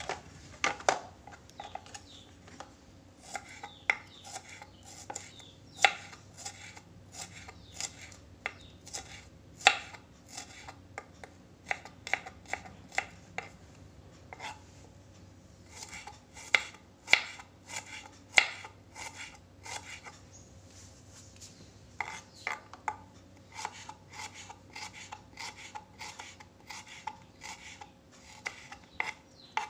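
Kitchen knife slicing shallots thinly on a wooden cutting board: a run of irregular sharp taps of the blade against the board, with a couple of short pauses.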